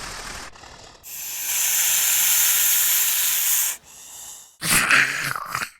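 Snake-monster hiss sound effect: a long, loud hiss of about three seconds. It is followed near the end by a short, pitched creature cry.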